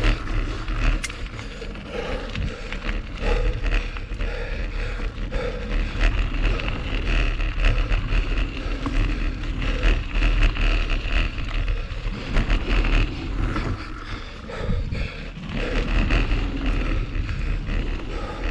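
Mountain bike rolling fast along a dirt singletrack: wind rumble on the camera microphone, tyre noise over dirt and leaves, and the frequent clicks and rattles of the bike over bumps.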